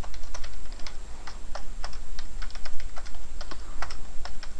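Typing on a computer keyboard: a quick, irregular run of keystrokes, several a second, over a steady low hum.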